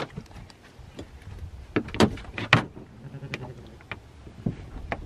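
Scattered knocks and scrapes as a large Akbash dog climbs out of a plastic travel crate onto a pickup's bedliner, its paws and claws on the plastic and the crate shifting. The loudest are two sharp knocks about two and two and a half seconds in.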